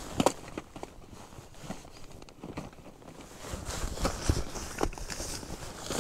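Scattered clicks and knocks of handling, with a sharp knock just after the start and several more about four to five seconds in.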